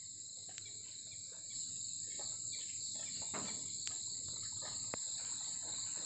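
Steady, high-pitched forest insect chorus, with a few faint ticks scattered through it.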